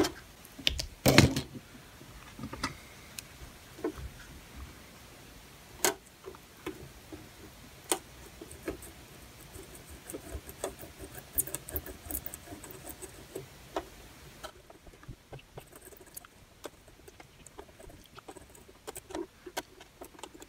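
Soldering iron drawing copper solder wick across circuit-board pads, with many small scratchy clicks and crackles as the braid drags and the flux heats; a few louder sharp taps come in the first half.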